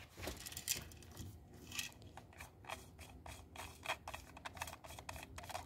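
Plastic lock nut being unscrewed from a new toilet flush valve's threaded shank: a run of faint, irregular clicks and scraping of plastic threads and parts.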